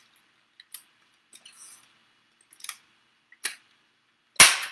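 Scattered plastic clicks from a Pampered Chef Batter Mix & Pour container as its plunger-dispenser is worked to the third dispensing level, with a much louder snap near the end.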